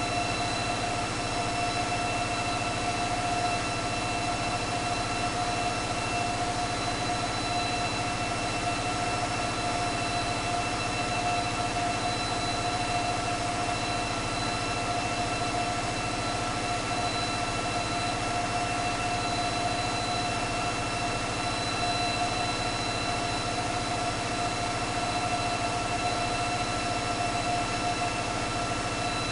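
Caterpillar 3516B V16 diesel engine running steadily on an engine dynamometer: a dense, unchanging drone with a steady high whine over it.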